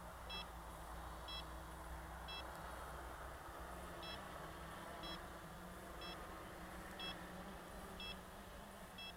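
Short high electronic beeps, about one a second with one longer gap, over a faint steady hum.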